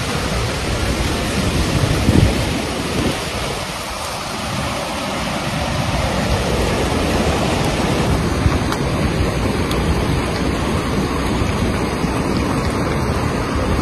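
Muddy floodwater rushing in a torrent down a street in heavy rain: a loud, steady noise of churning water and rain.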